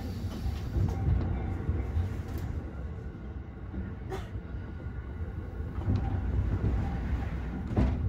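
Inside a Joban Line commuter train running at a wind-restricted speed: a steady low running rumble with a few sharp clicks, the clearest about four seconds in and near the end.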